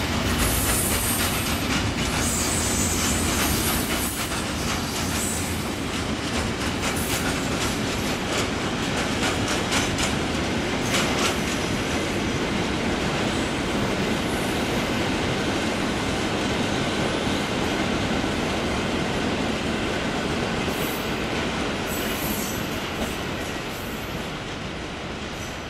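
A long loaded freight train of covered hopper wagons rolling past at a steady pace. Its wheels make a continuous rumble with clicks over rail joints and now and then a high squeal, and the sound eases off a little near the end.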